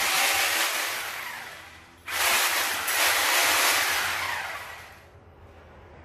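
Handheld electric drill triggered twice with no load: each time the motor whirs up suddenly, then winds down over about two seconds.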